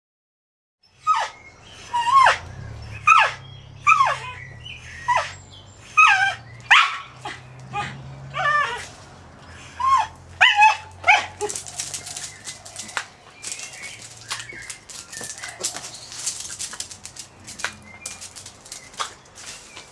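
Jack Russell terrier barking in a run of short, high yips, one or two a second, for about ten seconds. After that come quieter rustling and scattered sharp clicks.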